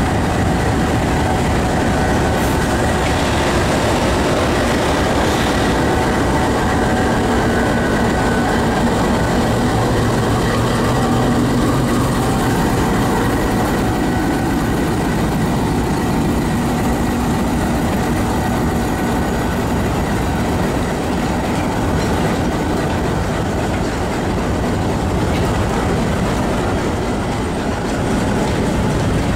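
GE U20 (GEU-20) diesel-electric locomotive running steadily as it pulls its passenger coaches slowly past, the coaches' wheels rolling on the rails.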